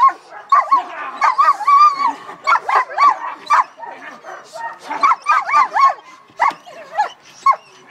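Young German Shepherd giving rapid, high-pitched barks and yips in quick bursts while restrained and worked up by a decoy for bite work. The barks come in clusters, pause briefly midway and thin out to single calls near the end.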